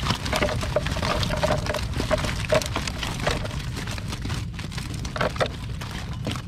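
Live tilapia flapping and slapping in a heap on the wooden hull of a fishing canoe: a dense, irregular patter of small wet smacks and clicks, over a steady low rumble.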